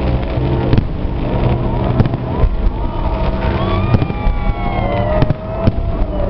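Fireworks going off: sharp bangs about once a second, with several whistles falling in pitch in the second half, over a steady low rumble.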